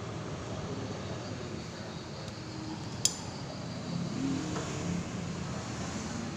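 Repaired refrigerator running: its fan motor turning with a steady whir and hum, no longer scraping against the metal. There is a single sharp click about three seconds in.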